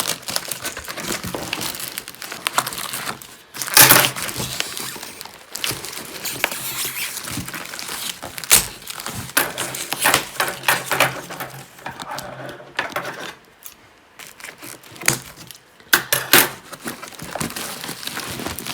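Parcel packaging being handled and forced open: irregular crinkling and rustling with scrapes and sharp knocks. The loudest burst comes about four seconds in, with another cluster near the end.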